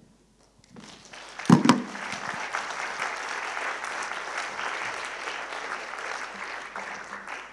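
Congregation applauding, beginning about a second in and going on steadily, with one brief loud sound at the start of the clapping.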